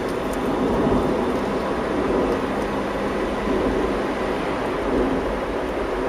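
Steady low road and engine noise heard inside a moving car's cabin.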